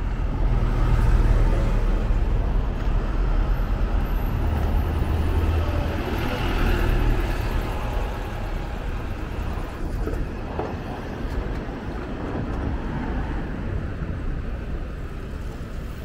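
Elizabeth Line Class 345 electric train running: a steady low rumble with a rushing hiss, louder through the first half and easing off in the second.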